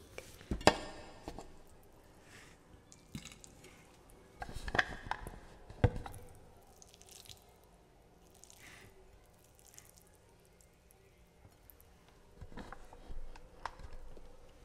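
Soft close-microphone ASMR sounds made with hands and mouth: scattered quiet clicks and taps. The sharpest comes about half a second in, a small cluster follows around five to six seconds in, and another near the end.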